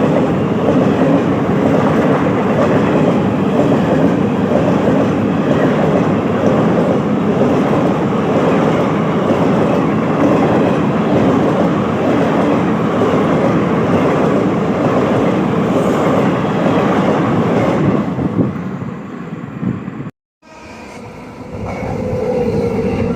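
Train passing close by at high speed: a loud, steady rush and rattle of the cars going by for about eighteen seconds, dying away as it clears. It then cuts off abruptly to silence, and a new sound rises near the end.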